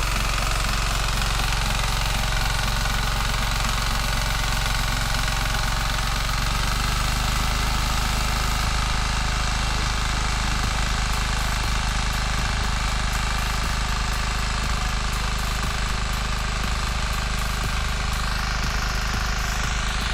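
Walk-behind tractor's single-cylinder engine running steadily, its note changing about six or seven seconds in.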